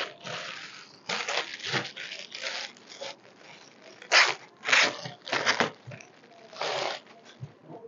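Clear plastic garment bag crinkling and rustling in short bursts as it is handled, about nine times, with the loudest rustles a little past halfway.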